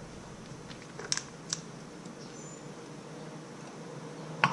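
A few light clicks and taps of small-engine carburetor parts being handled as it is taken apart: two close together about a second in, another just after, and a sharper click near the end, over a faint steady background.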